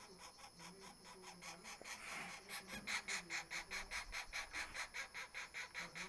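Scaly-bellied woodpecker nestlings begging from inside the nest hole, a rapid pulsing call at about eight pulses a second that grows louder about two and a half seconds in. It is the chicks' food call while the male feeds them at the entrance.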